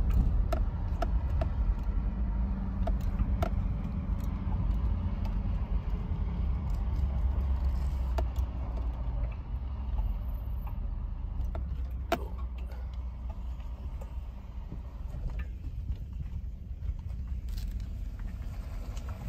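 A truck driving slowly over a truck scale and a gravel mine yard: a steady low engine and road rumble, with scattered clicks and rattles and one sharper knock about twelve seconds in.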